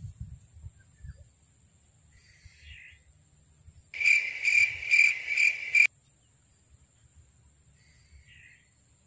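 Insects calling in a swamp: a steady high-pitched drone throughout, and about four seconds in a loud pulsed call of some six beats that lasts about two seconds and cuts off suddenly.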